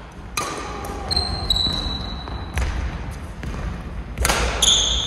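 Badminton play: sharp cracks of rackets striking the shuttlecock, about three in all, a second or two apart. Two high squeaks of shoes braking on the court floor last about a second each, with dull thuds of footwork underneath.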